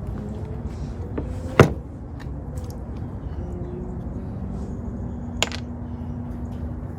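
Two sharp knocks of hard parts being handled while working on a battery jump box, the first and louder about a second and a half in, the second a few seconds later, over a steady low background noise.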